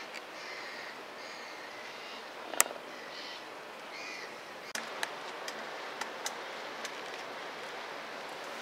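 Small birds chirping faintly over steady outdoor background noise by open water. There is one sharp click about two and a half seconds in and a few lighter clicks in the second half.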